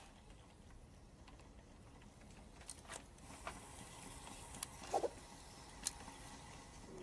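Reel-to-reel tape recorder playing back: a faint tape hiss that thickens about three seconds in, with scattered small clicks and a brief low sliding squeak about five seconds in.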